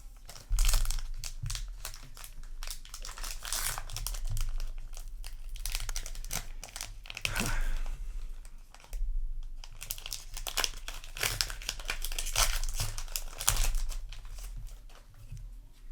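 Foil booster pack wrapper being crinkled and torn open, with irregular crackling throughout over a steady low electrical hum.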